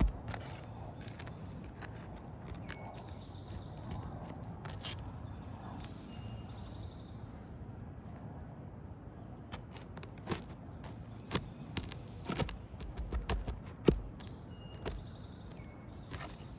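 Scattered clicks, taps and scrapes of hand work on an asphalt shingle roof, over a steady outdoor hiss; the clicks come thicker in the second half.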